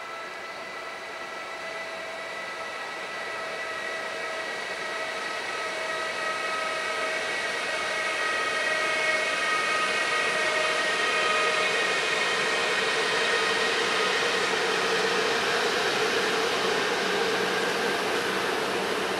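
Electric locomotive pulling a freight train of trailer wagons past, with a steady whine from its drive that fades after about ten seconds. The rolling noise of the wagons grows louder and takes over.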